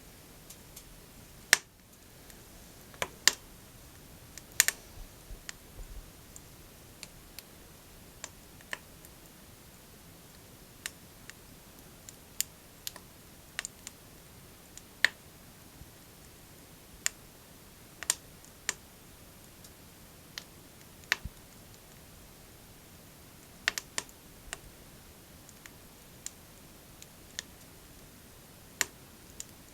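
Logs burning in a small wood stove, crackling with sharp, irregular pops every second or two over a faint steady hiss.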